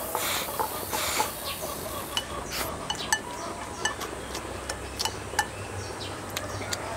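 Someone eating fried rice from a bowl: chopsticks click repeatedly against the bowl as rice is shovelled into the mouth and chewed.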